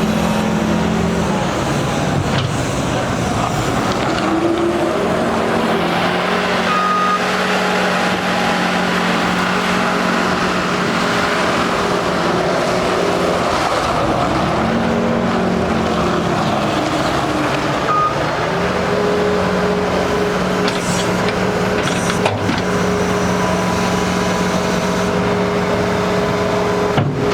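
New Holland L234 skid steer's diesel engine running, its pitch dropping and rising a few times as the revs change, with a few short knocks.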